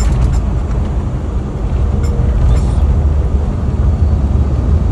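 Cockpit of an Airbus airliner just after touchdown: a steady low rumble from the wheels and engines on the landing roll, with a few light rattles.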